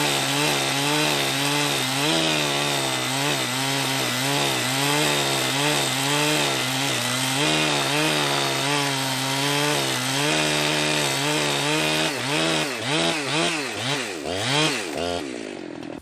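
Jonsered 2071 two-stroke chainsaw running at high revs and cutting wood, steady under load. About twelve seconds in, the revs start rising and falling several times, and the saw dies away just before the end.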